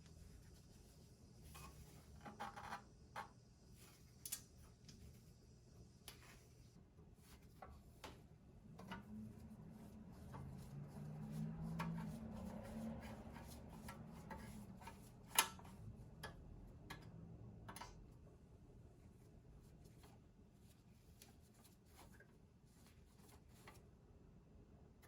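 Faint scattered clicks and light rubbing of espresso-machine boiler parts and tools being handled during reassembly, with one sharper click about fifteen seconds in and a faint low hum in the middle.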